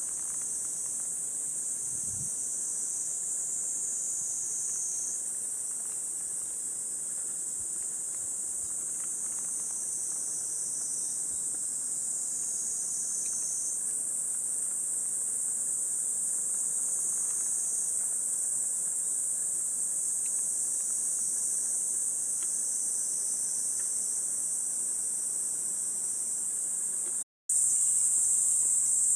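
Cicadas in full summer chorus: a continuous, shrill, high-pitched drone. It breaks off for a moment near the end and returns slightly louder.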